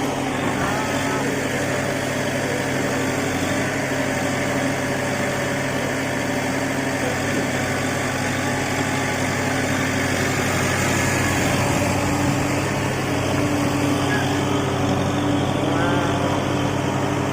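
JCB backhoe loader's diesel engine running steadily, swelling slightly as it works.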